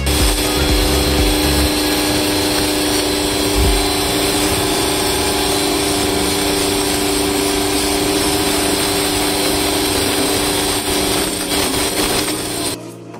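Daewoo DAX65-100 1600 W electric high-pressure cleaner running, its motor and pump humming steadily under the hiss of the high-pressure jet striking concrete. The sound stops abruptly near the end.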